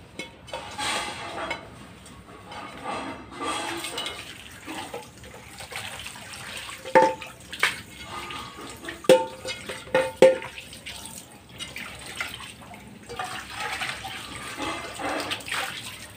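A metal frying pan being scrubbed with a soapy sponge and washed with water at a sink, with splashing and rubbing sounds. About five ringing metallic clanks come as the pan knocks about, between roughly seven and ten seconds in.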